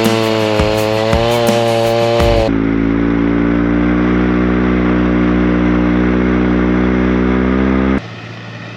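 Chainsaw cutting wood at high revs, its pitch wavering under load with ticking from the chain, for about two and a half seconds. It then breaks off abruptly into a steady, lower-pitched engine note that runs for about five seconds and stops suddenly.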